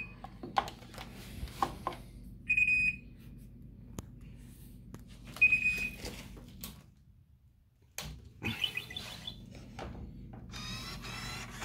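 Short, high electronic beeps, three of them about three seconds apart, among the clicks and knocks of handling, over a low steady hum.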